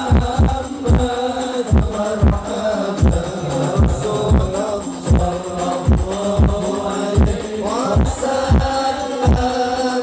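Male voices singing sholawat together through a sound system, over deep drum strokes that come a couple of times a second, each dropping in pitch.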